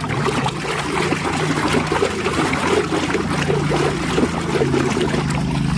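Water running and splashing as a mud-covered toy vehicle is rinsed and washed clean.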